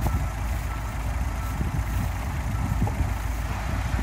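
Steady low rumble of heavy truck engines running, with a faint short beep about one and a half seconds in.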